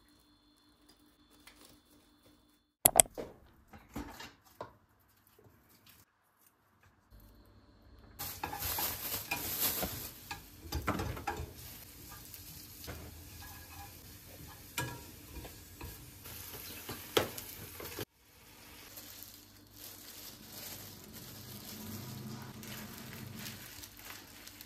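Kitchen cooking sounds: a sharp knock about three seconds in, then from about eight seconds a steady sizzling hiss with scattered clinks and scrapes of utensils, which drops to a quieter steady noise after a sudden break near eighteen seconds.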